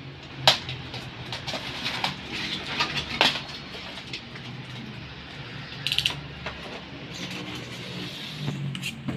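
Clicks and knocks of a stereo microscope's parts and packaging being handled during unboxing, with a sharp knock about half a second in, another about three seconds in, and a short rattle about six seconds in.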